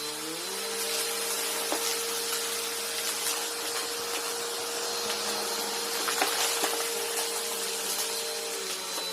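Upright vacuum cleaner running with a steady motor whine that reaches full speed in the first half second and dips slightly near the end. Scattered clicks and crackles of debris being sucked up come through over the motor.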